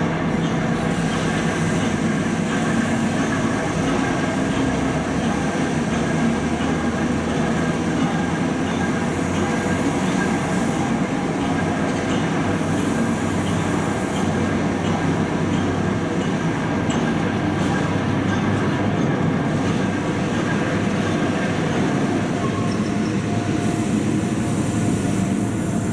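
Diesel train running steadily: a continuous engine hum mixed with the noise of wheels on the rails.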